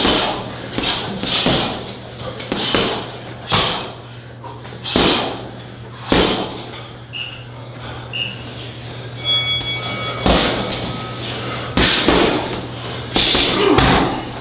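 Punches and kicks landing in an uneven series of sharp thuds, about a dozen in all, with a lull of a few seconds in the middle.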